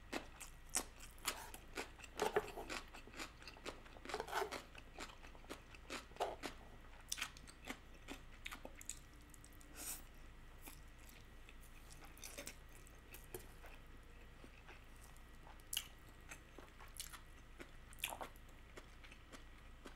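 A person chewing and slurping spicy stir-fry instant noodles, with many short wet mouth clicks, busiest in the first seven seconds and sparser after.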